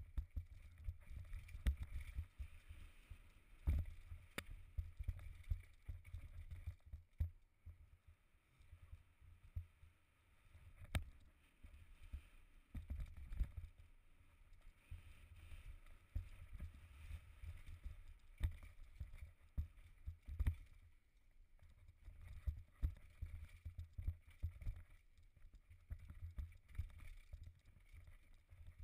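Mountain bike ride down a rough forest trail heard from the rider's camera: a low rumble with many irregular knocks and rattles as the bike hits bumps and roots.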